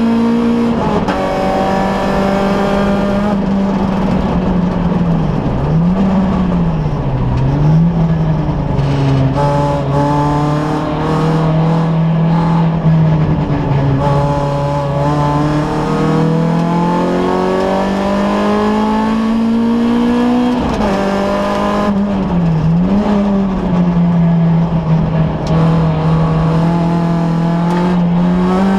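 Peugeot 106 Cup race car's four-cylinder engine running hard at high revs, heard from inside the cabin. Its pitch dips sharply and recovers a few times as the driver lifts and changes gear for corners, then climbs steadily again on the throttle.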